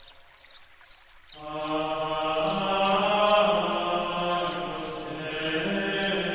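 Background music: a sustained, chant-like drone of held tones that swells in about a second in after a quiet start and then holds steady.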